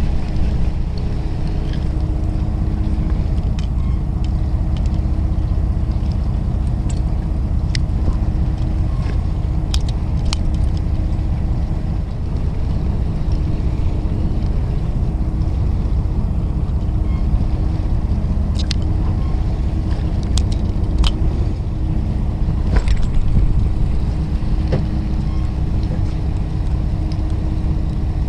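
Fishing boat's engine running with a steady low drone, with a few sharp clicks scattered over it.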